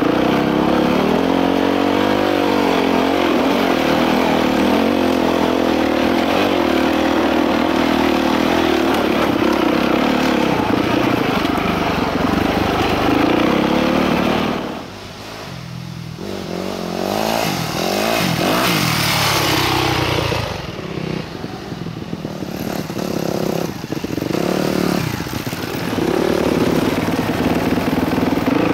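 Dirt bike engine running under throttle with pitch rising and falling as it is ridden. About halfway through the throttle closes and the engine drops off sharply, then picks back up with uneven revving.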